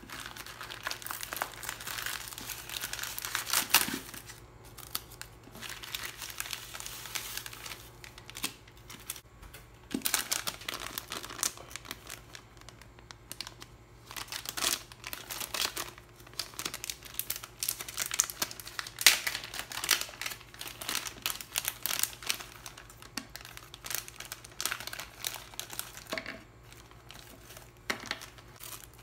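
Plastic packaging crinkling and rustling in irregular bursts as a poly shipping mailer is torn open by hand and a clear zip-lock bag is handled, with some tearing of the plastic.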